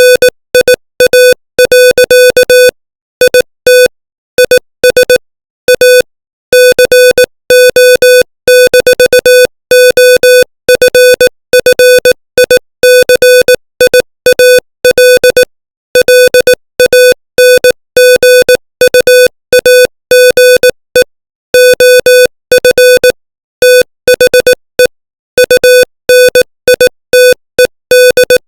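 Morse code sent at 18 words per minute: a single-pitch electronic beep keyed on and off in short dots and longer dashes, with short silences between letters and longer ones between words, spelling out English text.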